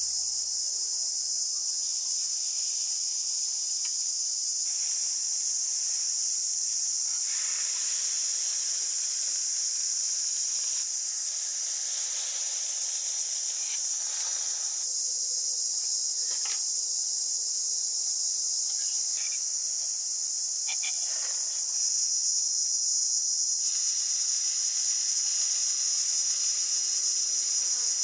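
Insects droning steadily at a high pitch, with a few faint clicks and taps underneath; the drone gets a little louder about three-quarters of the way through.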